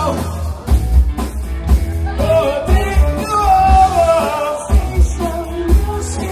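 Live rock band playing: a sung melody over a steady drum beat with heavy bass and keyboards.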